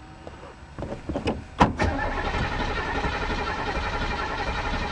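Starter motor cranking a 1987 Oldsmobile Cutlass Supreme's V8 engine, which turns over without firing because there is no fuel in the carburetor. A click and a sharp clunk come as the starter engages about a second and a half in, then an even, rhythmic cranking, strong on a brand-new battery.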